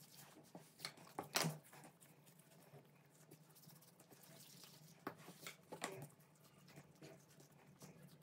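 Faint soft taps and rubbing of hands rolling portions of yeast dough into balls on a floured table. The taps are loudest about a second and a half in and come again around five to six seconds in.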